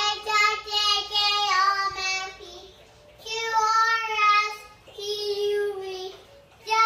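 A high, child-like voice singing a simple tune in three short phrases with brief pauses between them.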